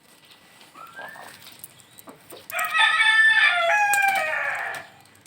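Rooster crowing once, a loud call of about two seconds that starts about two and a half seconds in and steps down in pitch, after a short rising call about a second in.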